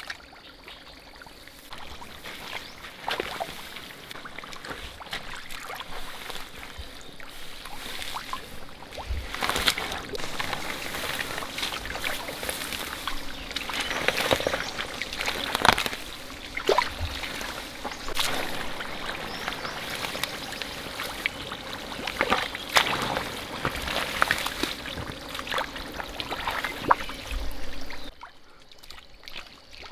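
Water sloshing and splashing unevenly, with sharper splashes now and then; it stops suddenly near the end.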